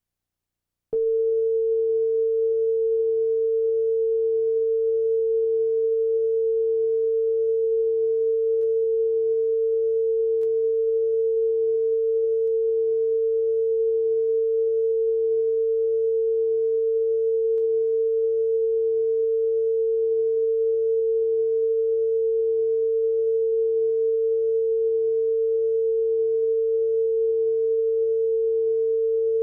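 Bars-and-tone reference tone from a videotape: one steady pure tone that switches on abruptly about a second in and holds at a constant pitch and level.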